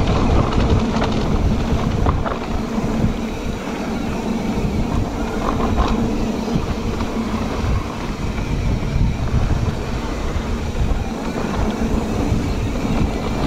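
Wind buffeting the camera's microphone and tyres rumbling over a dirt trail while riding an electric mountain bike, with a steady low hum from the drive motor and a few short knocks and rattles from the bike.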